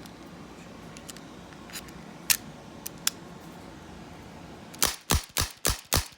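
Revolver firing a rapid string of six sharp shots, about four a second, after a few lighter scattered clicks.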